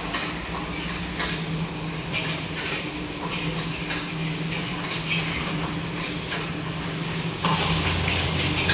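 Busy food court kitchen: dishes, pots and utensils clinking and knocking at irregular moments over a steady low hum.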